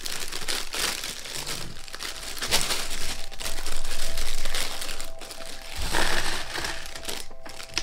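Plastic Lego parts bag crinkling as loose Lego Technic pieces are dumped out, with many small plastic clicks and clatters.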